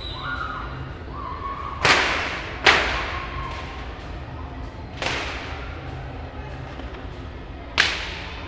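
Fireworks exploding: four sharp bangs, two close together about two seconds in, one about five seconds in and one near the end, each trailing off in an echo. Faint whistling tones sound in the first second or so.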